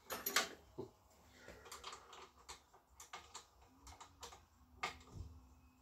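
Faint, scattered clicks and taps of metal tools and parts handled at a scooter's handlebars while a mirror is being fitted, with the loudest knocks right at the start and about five seconds in.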